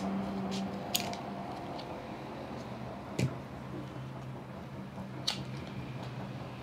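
A foil suture packet being cut with scissors and then opened by hand: a few sharp snips and crinkles of the foil, over a steady low hum.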